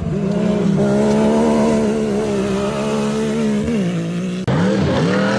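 UTV engine running at high, steady revs, dropping off near the end. After a sudden cut, an engine revving up and down.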